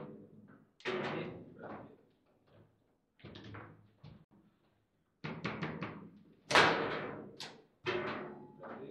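Foosball in play: the ball and the rods' plastic figures striking, with rods knocking against the table, making a run of sharp knocks and thuds. A quick cluster of hits comes about five seconds in, and the loudest slam about six and a half seconds in.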